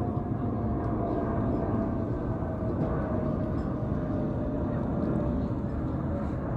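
Twin-engine jet airliner passing overhead: a steady low rumble of engine noise, with a faint whine that slowly falls in pitch.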